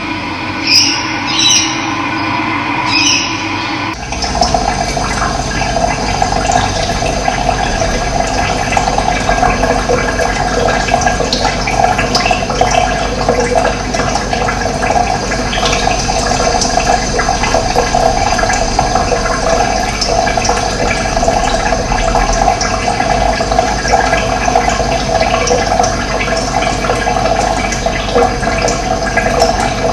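Running water, a steady rush of flowing water. For the first four seconds a different, more tonal sound with a few short high chirps plays, then it cuts off abruptly and the water takes over.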